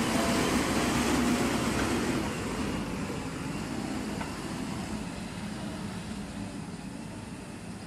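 JCB backhoe loader's diesel engine running, loudest in the first two seconds and then slowly fading.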